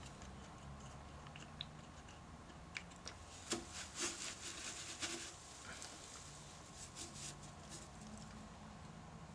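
Hands rubbing sawdust into holes in a spalted oak bowl blank and working a CA glue bottle against the wood: soft crackling and rustling, clustered between about three and five seconds in, over a faint low hum.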